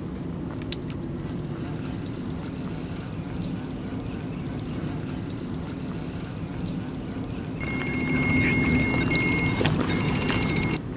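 A carp rod's electronic bite alarm sounds a continuous high tone about two-thirds of the way in, stops briefly, then comes back louder. This is the signal of a fish taking line, heard over a steady low background hum.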